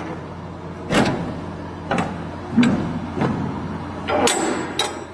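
Steel shipping container cargo door being unlatched and opened: a series of metal clanks and knocks as the locking-bar handles are lifted and the bars turned, then the door swung open. A steady low hum runs underneath and fades out about four seconds in.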